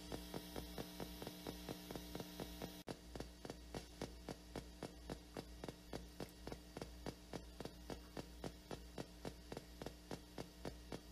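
PSB7 spirit box sweeping through radio stations in silent mode, giving a steady train of short clicks about four a second over a steady hum. The clicks break off in a brief dropout about three seconds in.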